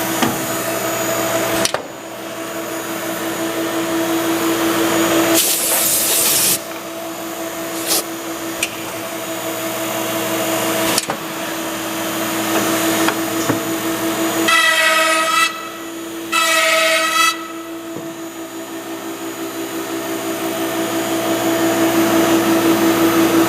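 Mereen-Johnson 1105 CNC dovetail machine running: a steady high whine from its air-cooled router spindles, swelling and easing in cycles, with a few sharp clicks. A burst of air hiss comes a little over five seconds in, and two short, louder buzzes come about fifteen and seventeen seconds in.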